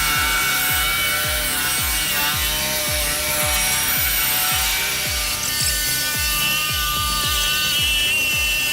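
Sawmill saw cutting wood, a steady grinding whine, under background music with a steady beat of about two thumps a second.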